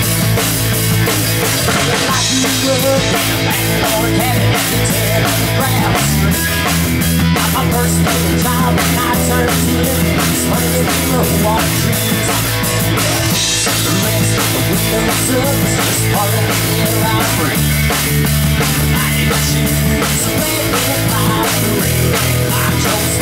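Live rock band playing: electric guitar, electric bass and a drum kit keeping a steady beat, with the bass line stepping to a new note every few seconds.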